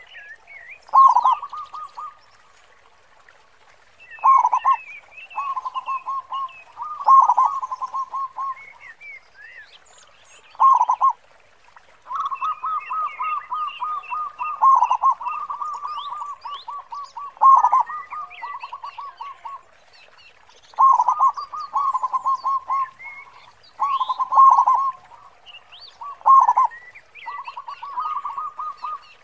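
Zebra dove (perkutut) cooing in repeated phrases every few seconds, each a loud deep 'khong' note or two with a quick trilled run of coos. Other small birds chirp faintly higher up.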